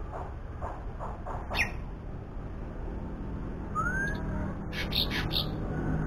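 Caged songbirds chirping and whistling: scattered short calls, a rising whistle about four seconds in, and a cluster of sharp notes near the end, over a low steady hum.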